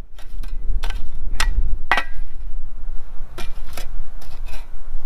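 Metal shovel blade scraping into soil and striking stones while dirt is shovelled back into a fire pit hole: several sharp scrapes and clinks about half a second apart, over a steady low rumble.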